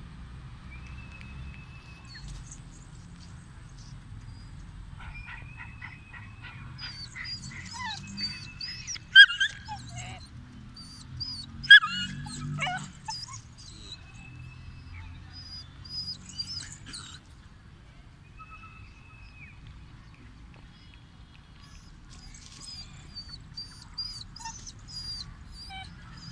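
Kohati Gultair puppy whimpering and whining in high, wavering cries, with two sharp yelps that drop in pitch about 9 and 12 seconds in.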